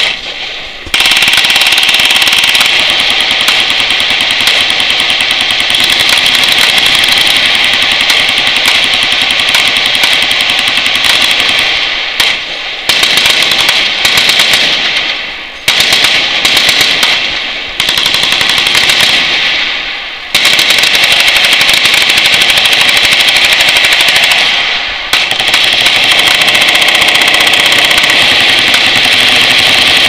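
Machine guns firing in long, near-continuous automatic bursts, very loud, the shots running together into a rapid rattle. The firing dips briefly about a second in and several more times, then picks straight back up.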